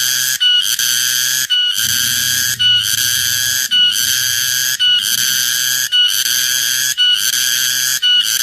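Cicada (tonggeret) calling very loudly: a shrill, high call repeated in phrases of about a second, each cut off by a brief pause.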